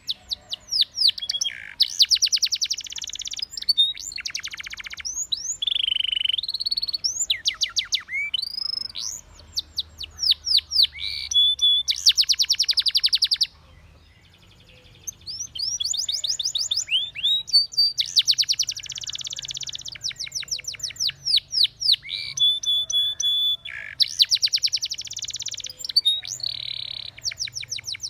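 Spanish Timbrado canary singing: fast rolling trills, runs of rising whistled notes and held steady notes, with a pause of about a second and a half midway before the song starts again.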